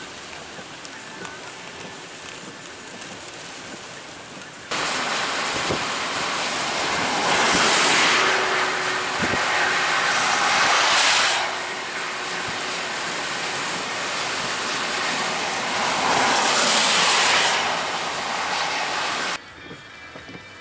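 Thunderstorm noise: steady rain at first. After an abrupt cut, a loud rushing of wind and driving rain swells in three gusts, then drops back abruptly to quieter rain.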